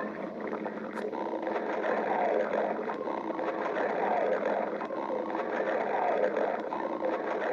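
Human stomach growling: a continuous gurgling rumble that swells and falls in slow waves, a little louder from about two seconds in.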